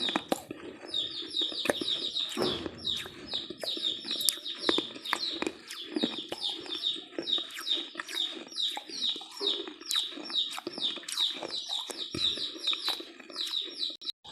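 Crunchy chewing of a dry snack mix, many sharp crackles, while birds chirp over and over in short falling notes, a few a second.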